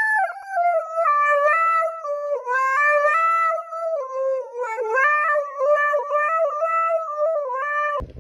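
Husky howling into a handheld karaoke microphone: one long wavering howl that starts high, settles lower with brief dips in pitch, and cuts off just before the end.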